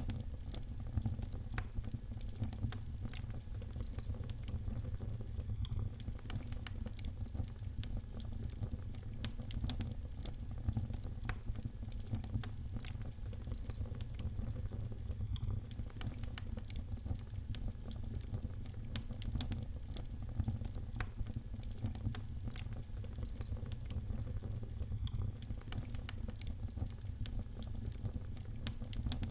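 Fireplace fire crackling: a dense, irregular scatter of small sharp pops over a steady low rumble.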